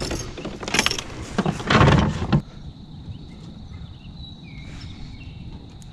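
Handling noise while a just-caught largemouth bass is measured in a kayak: rustling and knocking for about two and a half seconds that stops suddenly. After it comes a quiet outdoor background with a faint steady high tone.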